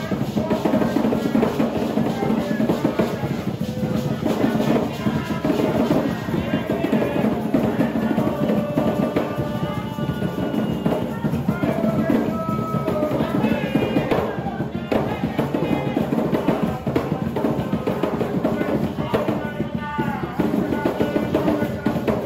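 Garifuna drums, hand-played wooden drums with skin heads, beating a steady, fast dance rhythm throughout.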